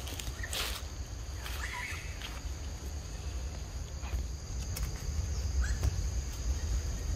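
Steady high-pitched insect drone over a low rumble, with two short chirps, one about a second and a half in and another near six seconds.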